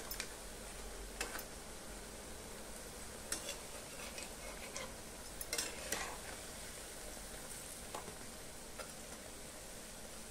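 Moong dal pakoras deep-frying in hot oil in a kadai over a medium gas flame, a steady sizzle, with a few short clinks of a metal slotted spatula against the pan as they are turned.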